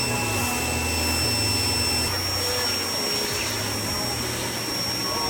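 Pressure washer running: a steady hiss of spray over a low motor hum, with a thin high whine that shifts slightly about two seconds in.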